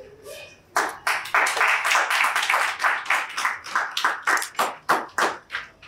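An audience clapping, about four to five claps a second, starting about a second in and stopping shortly before the end.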